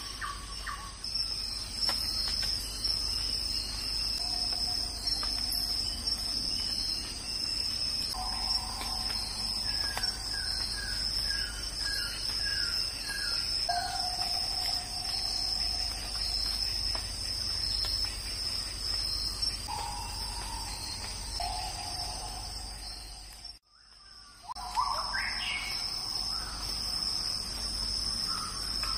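Insects, crickets or cicadas, keep up a steady high-pitched trill. Over it, birds call again and again: held whistled notes about a second long and a quick run of repeated chirps. About 24 seconds in, the sound cuts out almost completely for a moment.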